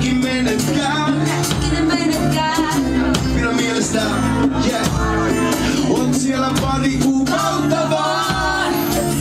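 Live band performing a song: a man sings lead into a microphone, with acoustic guitar strumming and violin.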